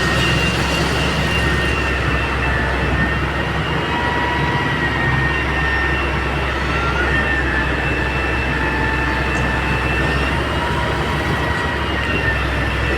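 Heavy-duty excavator running steadily, a constant low engine hum with high, slightly wavering squealing tones held over it.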